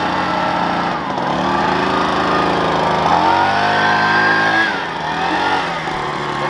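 Handheld leaf blower running, its pitch rising and falling as it is revved up and down, with a drop about five seconds in.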